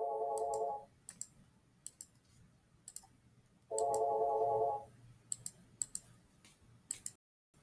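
Electronic telephone ringing in a warbling trill, about a second on and three off, twice, with computer mouse clicks in between.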